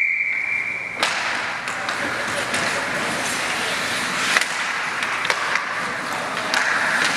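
A referee's whistle blast that cuts off about a second in, followed by ice hockey play: skates scraping on the ice, with sharp clicks and cracks of sticks and puck.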